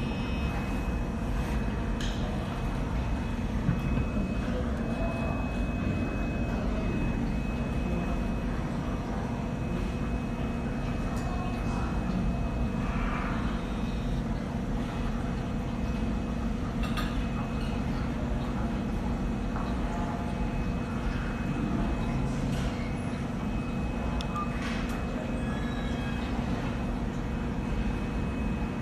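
Steady low background rumble with a faint, steady high-pitched tone running through it, and a few scattered light clicks.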